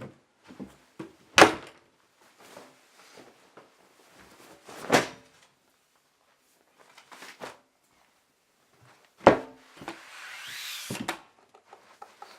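A series of knocks and thuds, like a wooden door or drawer being handled in a small room: four loud sharp knocks among smaller taps, with a rustling noise shortly before the last knock.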